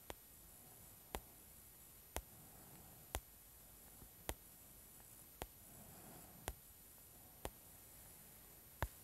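Sharp single clicks about once a second, nine in all, over a faint steady hiss.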